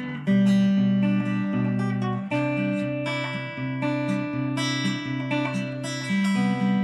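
Background music: strummed acoustic guitar with a steady strum and chords changing every second or so.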